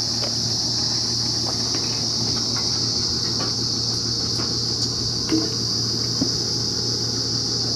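Steady high-pitched insect chorus over a low steady hum, with a few faint knocks in the second half.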